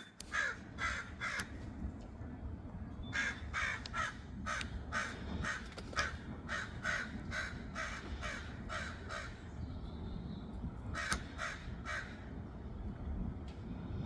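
Crow cawing in runs of short repeated caws: three, then a long run of about a dozen, then three more near the end, over a low steady background rumble.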